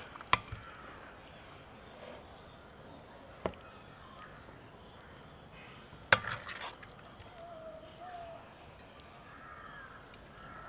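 Quiet background with three sharp knocks, the loudest about six seconds in, and faint bird calls in the second half.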